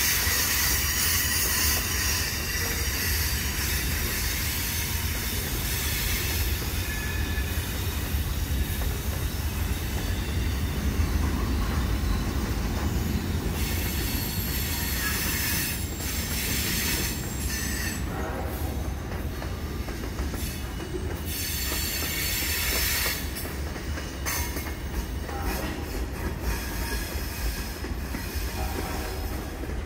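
Railroad cars rolling past with a steady deep rumble, their steel wheels squealing on the rail in high, on-and-off tones.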